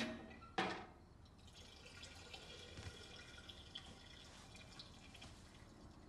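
A door shuts with two knocks. About a second later a steady stream of urine starts splashing into toilet water and runs for about four seconds.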